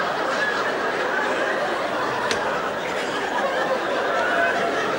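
Theatre audience laughing together.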